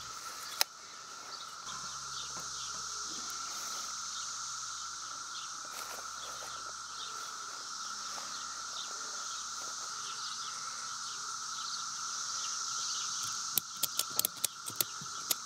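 Ratchet strap cranked tight around the tedder's small tyre, a run of sharp ratcheting clicks, several a second, near the end: the strap squeezes the tread to push the tyre bead out against the rim. Before that, only a steady insect chorus.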